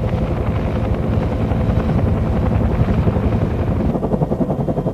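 Bell UH-1 "Huey" helicopter's rotor beating steadily in a rapid, even thudding, with a faint steady hum above it.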